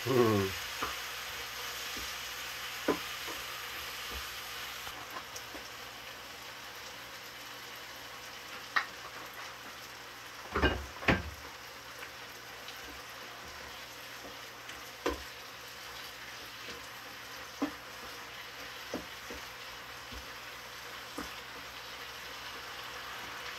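Tomatoes and onions sautéing in a frying pan, a steady sizzle, while a wooden spatula stirs them and knocks against the pan now and then, the two loudest knocks close together about halfway through.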